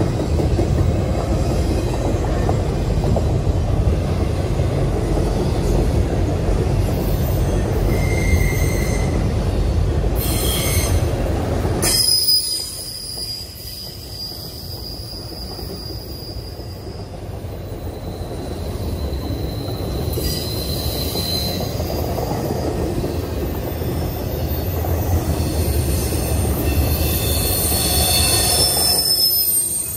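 Norfolk Southern intermodal freight train's cars rolling past: steady rumble of steel wheels on rail, with high-pitched wheel squeal coming and going. The rumble drops suddenly about twelve seconds in and builds back up a few seconds later.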